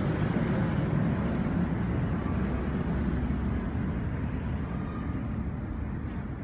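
Steady low rumble of wind and distant city noise on a high-rise balcony, fading slowly over the last few seconds.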